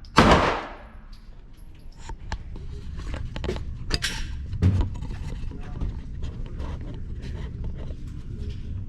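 A Glock 45 Gen 5 9mm pistol fires a single shot just after the start, and the report rings out and fades over about half a second. After it come quieter handling clicks and a steady low rumble.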